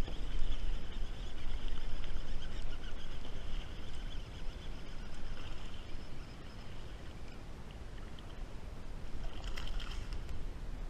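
Steady low rumble of wind and water around a kayak. About nine and a half seconds in comes a short splash as a small bass is lifted out of the water.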